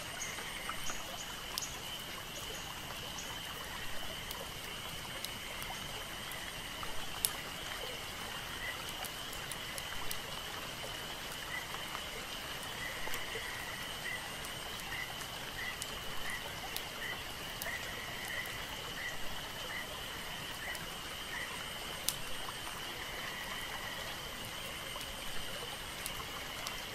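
Forest ambience: a steady high-pitched drone over a soft rushing like running water. Through the middle, a run of short chirps repeats about once a second.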